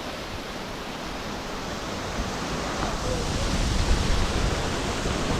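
Steady rushing noise of a small waterfall pouring into the sea, with surf. It grows slightly louder toward the end.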